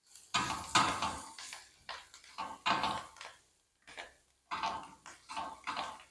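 Spatula scraping and stirring sliced onions and greens around a nonstick frying pan in quick, uneven strokes with short pauses between them.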